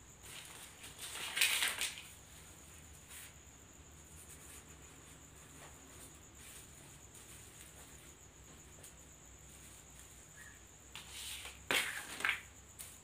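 Brief rustling and handling of artificial flower sprays, once about a second in and again near the end with a sharp click, over faint room tone with a thin steady high whine.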